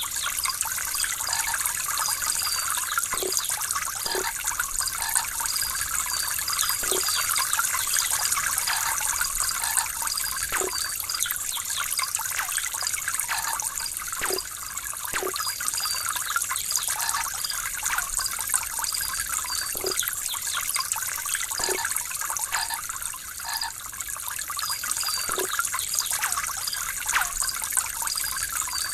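Running water trickling and splashing steadily, with scattered low plops of drops. A faint high chirp repeats about twice a second behind it.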